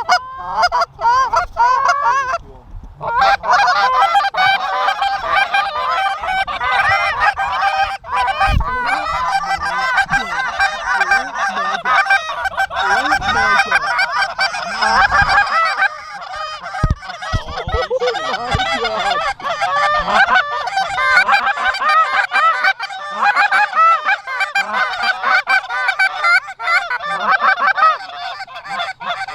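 Canada geese honking: a few calls at first, then from about three seconds in a dense chorus of many overlapping honks. A few low thumps sit underneath.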